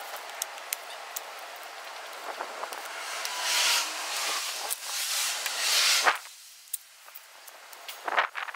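Scraping and rubbing of a flat spreader working JB Weld epoxy putty over a plastic body panel, with scattered light clicks and a few louder swells of noise that drop away after about six seconds.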